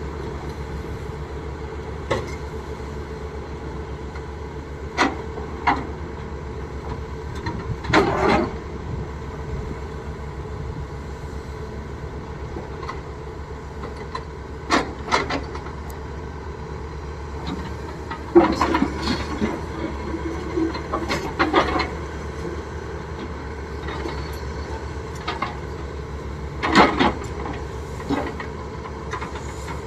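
Excavator's diesel engine running steadily under load, with scattered knocks and clatters about every few seconds as it works ore.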